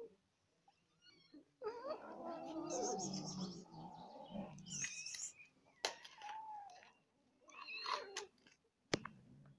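Cats growling and yowling while they compete over scattered food: a long wavering growl from about two seconds in, then shorter cat cries near the end.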